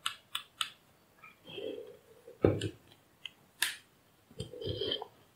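Scattered small clicks and light knocks, the sharpest about two and a half seconds in, from handling a digital multimeter, its test probes and a power-supply circuit board on a workbench.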